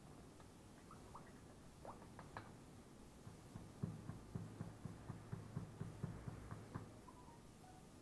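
Quiet room with a few faint squeaks, then a run of quick light taps, about five a second, lasting about three seconds in the middle.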